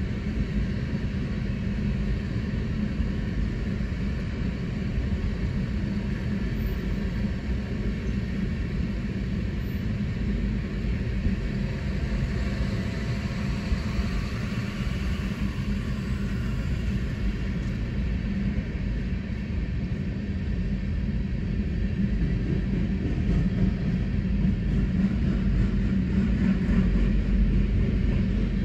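Empty coal cars of a freight train rolling past: the steady rolling noise of steel wheels on rail, getting somewhat louder near the end, heard from inside a car.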